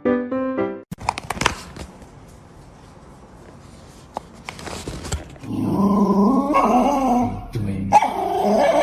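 A dog vocalizing: about halfway through it starts a long call whose pitch wavers up and down, and it goes on in two long stretches with a short break near the end. Before that, piano music cuts off about a second in and a few faint clicks follow.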